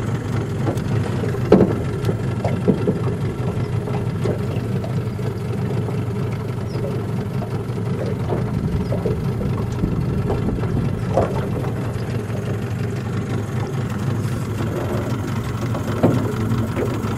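Motorboat engine running steadily at low speed, with a few short sharp knocks, one near the end.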